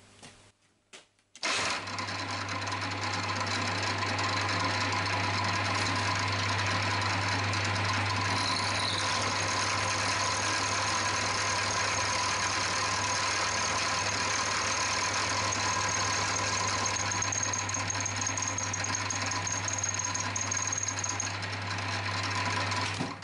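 Milling machine spindle starting about a second and a half in, then running steadily with a deep motor hum as the end mill faces off the top of a small stainless steel block. A thin high whine joins for a few seconds near the end.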